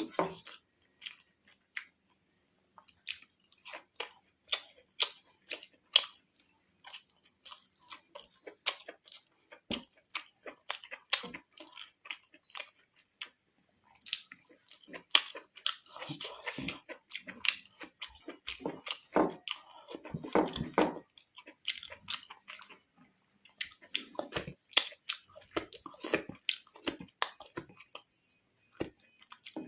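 Close-up chewing and wet mouth smacks of someone eating rice with spicy mushroom curry, a rapid string of short clicks that gets busier about halfway through.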